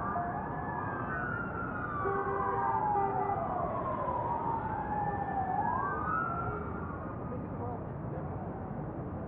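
Emergency vehicle sirens wailing, more than one at a time, slowly rising and falling in pitch over a steady background noise. The sirens fade out about seven seconds in, leaving only the background noise.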